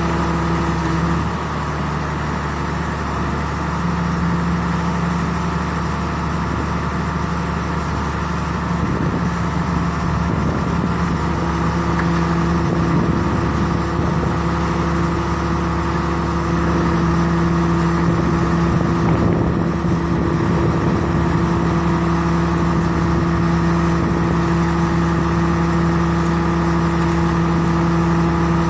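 Engine powering the RB 5000 baler running steadily. Its level and pitch dip briefly about a second in, then hold steady again.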